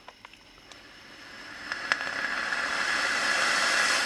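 Long draw on an OBS Engine-series rebuildable vape tank with its top airflow fully open: a hiss of air rushing in that builds over about three seconds and cuts off suddenly. There are a few faint clicks in the first two seconds.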